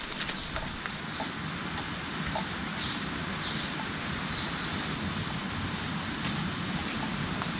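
Rainforest ambience: a high, steady piping note with five short falling calls over it, against a soft, even hiss.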